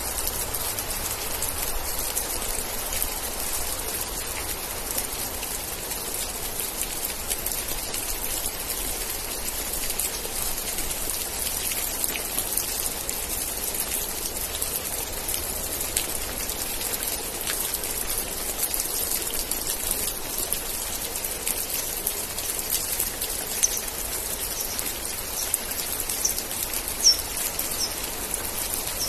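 Steady rain falling, an even hiss of many drops. Near the end there are a few short high chirps.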